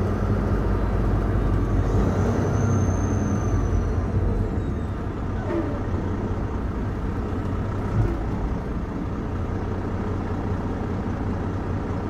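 Semi truck's diesel engine running steadily with road noise, heard from inside the cab while driving. The hum eases slightly about four seconds in.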